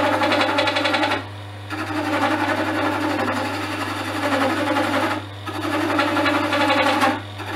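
Chisel cutting an olivewood pen blank spinning on a wood lathe: a fast, even rattling cut in three stretches, breaking off briefly about a second in and again after about five seconds, over the lathe's steady motor hum.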